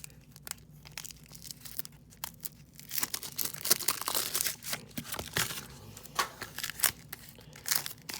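Packaging of a 1994 Flair baseball card pack being torn open by hand: a few scattered clicks, then dense tearing and crinkling from about three seconds in.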